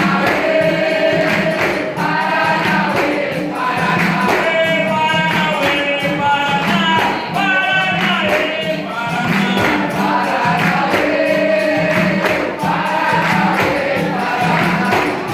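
Capoeira roda music: a group singing a song together, with voices holding long notes, over percussion keeping a steady beat.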